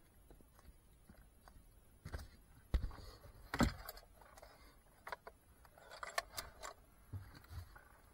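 Faint handling noises: scattered clicks, knocks and rustling of objects being moved about, with a few sharper knocks, the loudest about three and a half seconds in. Heard inside a car's boot.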